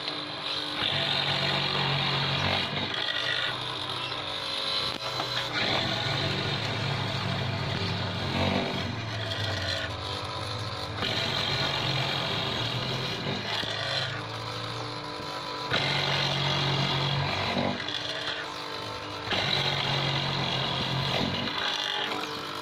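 Electric drill-driven wood mortising machine running, its bit cutting into wood in repeated stretches of a few seconds, the motor dipping briefly between cuts.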